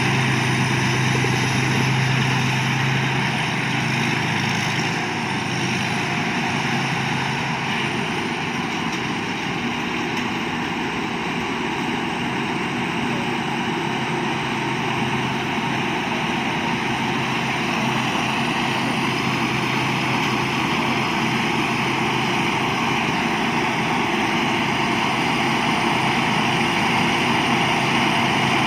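Thai Seng Yont rice combine harvester running steadily, a continuous engine drone, with a low hum that fades about three seconds in.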